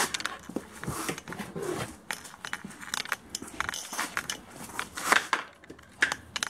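German wirehaired pointer puppy biting and chewing on a training lure: irregular crackling and crunching clicks.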